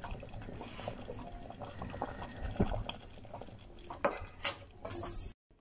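Wire whisk stirring thickened, bubbling tomato ketchup in a stainless steel pot, its wires clicking and scraping irregularly against the metal. The sound cuts off suddenly near the end.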